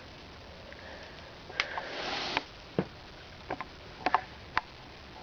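Handling noise: a short rustle followed by several light, irregular clicks.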